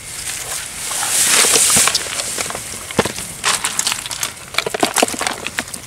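Water splashing, with a loud rush of water about a second in, and scattered sharp knocks and clatters from handling fishing gear.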